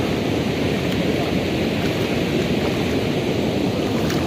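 Steady rush of a shallow river flowing over rocks and cobbles.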